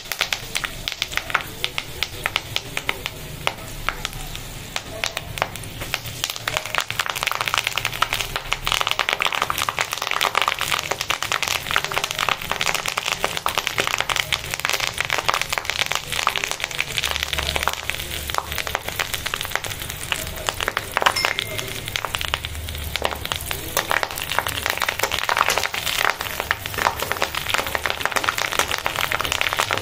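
Butter cooking down into ghee in an aluminium kadai with fresh drumstick (moringa) leaves, sizzling and crackling with dense rapid pops as it froths.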